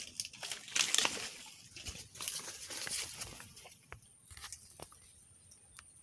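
Dry leaf litter, twigs and grass rustling and crackling under a person moving through scrub, busiest over the first few seconds and then thinning to scattered small snaps. A faint, steady high tone comes in about four seconds in.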